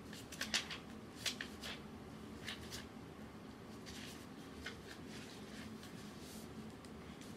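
Rummaging through cross-stitch supplies and project bags: short bursts of rustling and crinkling, the sharpest in the first three seconds, then fainter handling noise.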